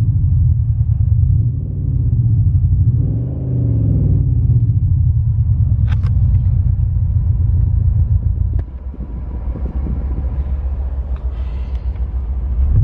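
Engine sound from Renault's R-Sound Effect app, played in a Renault Clio GT-Line with the 1.2 TCe engine: a deep rumbling engine note that rises and falls with the revs twice, holds steady, then drops to a lower, quieter drone about two-thirds of the way through. A sharp click is heard about six seconds in.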